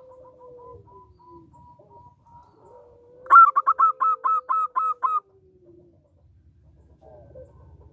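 Zebra dove (perkutut) cooing: soft drawn-out notes, then a loud, rapid run of about ten short coos lasting about two seconds.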